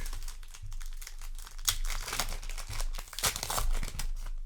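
A trading-card booster pack's wrapper being torn open and crinkled by hand: a dense, irregular crackling and rustling that stops abruptly near the end.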